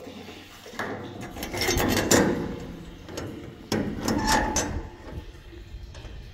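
A run of irregular knocks and clatters, as of hard objects being handled and set down, loudest about two seconds in.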